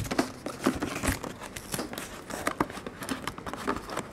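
A cardboard 2009 Upper Deck Exquisite Collection football card box being handled and opened on a tabletop: a run of short scrapes, taps and crinkles.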